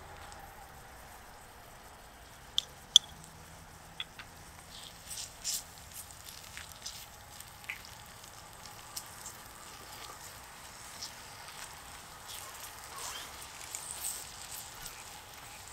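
Small wooden spatula tapping and scraping against a miniature cast-iron skillet while vegetables are stir-fried, over a faint sizzle. Scattered clicks and ticks throughout, the loudest two sharp knocks about two and a half to three seconds in.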